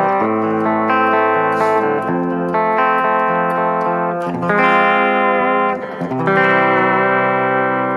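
Harley Benton Fusion electric guitar on its full bridge humbucker, through a clean tone, playing sustained ringing chords that change about every two seconds.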